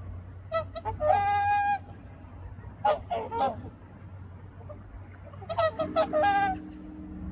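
Whooper swans calling: bugling honks in three bursts, the first ending in one long held note, over a low steady hum.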